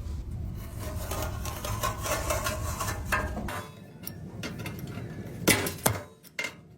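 Tool work on a truck's sheet-metal body panel, transferring spot-weld holes to the new panel: a busy mechanical rattle for about three and a half seconds, then a few sharp knocks about five and a half seconds in.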